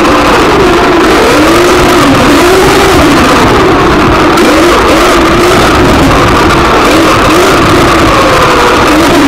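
Motor of a 1:10 scale RC buggy, picked up by its onboard camera, running hard while driving. Its pitch rises and falls over and over as the throttle is opened and closed through the turns.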